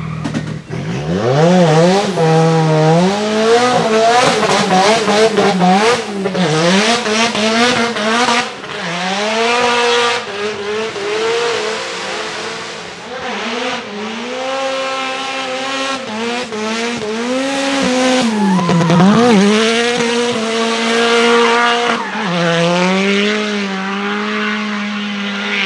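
Nissan SR20 turbocharged four-cylinder in a Mazda RX-7 FD3S drift car, fitted with an external wastegate screamer pipe, revving hard. The revs climb sharply about a second in, then swing up and down repeatedly as the car drifts, dipping deeply once near the middle and held level at high revs near the end, with tyres squealing.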